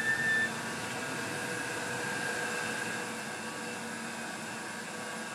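Steady hum and air noise of laboratory equipment and ventilation, with a few faint steady tones. A short high squeak sounds right at the start.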